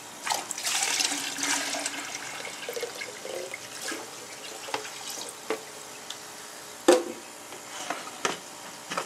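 Nutrient solution poured from a clear plastic jug into a deep water culture bucket: a splashing pour for the first couple of seconds, fading to trickles and drips. Then a few sharp knocks and clicks as the jug and bucket lid are handled, the loudest about seven seconds in.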